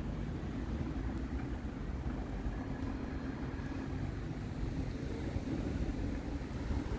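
Steady low rumble of a vehicle engine and road traffic, with a faint steady hum.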